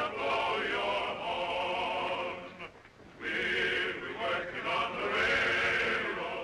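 A group of men singing together: two sung phrases of about three seconds each, with a short break a little before the middle.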